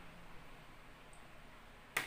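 Faint soft sounds of saucy liver pieces sliding from a bowl onto rice, then near the end a single sharp clink as the ceramic bowl is set down on the stainless steel tray.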